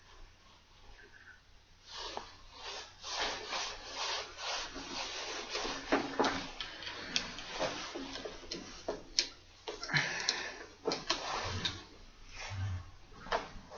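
Irregular rubbing and scraping with sharp clicks, starting about two seconds in: hand work tightening the clamp of a steering-wheel spinner knob, an Allen wrench working the clamp screw.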